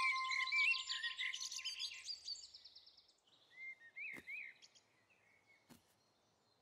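Birds chirping and tweeting, a busy chorus at first that thins out over about three seconds to a few scattered chirps. A steady whistle-like tone sits under the first two seconds, and a couple of faint clicks come later.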